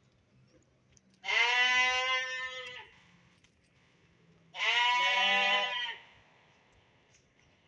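Young dumba (fat-tailed) sheep bleating twice, each call about a second and a half long, with a pause of about two seconds between them.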